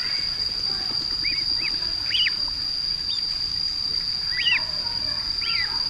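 Ducklings peeping: short, high calls that rise and fall, coming every second or so, over a steady high-pitched whine.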